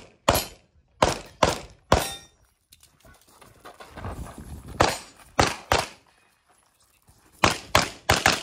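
Walther PDP Steel Frame pistol fired in quick strings: four shots about half a second apart, a gap of shuffling movement, three more shots, then four rapid shots near the end.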